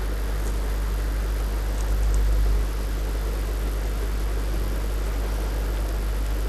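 Steady low hum with a hiss over it, and a few faint ticks.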